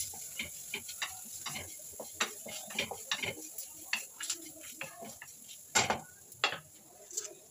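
Wooden spatula stirring and scraping spices in oil around a kadai: a string of irregular light taps and scrapes against the pan, with two louder knocks around six seconds in.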